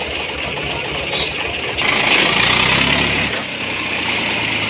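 Eicher tractor's diesel engine running with a steady knocking rumble. It is revved up about two seconds in, louder for a second and a half, then drops back to a lower run.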